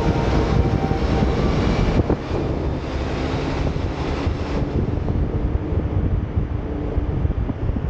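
Heavy truck driving at highway speed, heard from a microphone on its hood: steady wind rush over the microphone with the engine and road noise underneath. A faint pitched hum in the first two seconds gives way to even noise.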